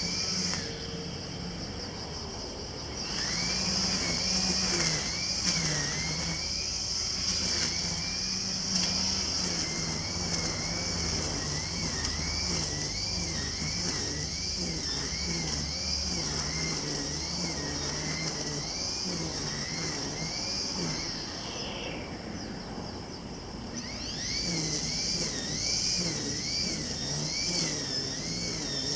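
Engine-powered brush cutter running at high speed while cutting grass. Its pitch dips and recovers rhythmically, more than once a second, as the cutting head swings through the grass. It eases off briefly a few seconds before the end, then picks up again.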